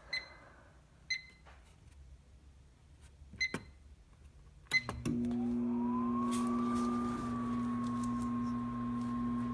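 Microwave oven keypad beeping four or five times as it is set, then the oven starting up about five seconds in: a steady electrical hum with a motor whine that rises in pitch and levels off.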